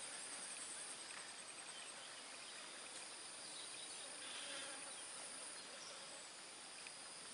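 Faint chorus of insects keeping up a steady high-pitched drone, with a rapid pulsing trill that stops about two seconds in.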